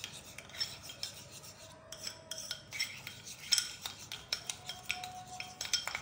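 Metal spoon stirring and scraping a thick paste of talcum powder and ghee around a ceramic bowl, with irregular rasping scrapes and light clicks of the spoon against the bowl.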